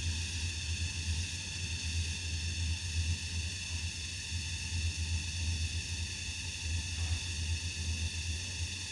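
Cicadas calling in a continuous chorus, a steady high-pitched shrill drone, with a low rumble underneath.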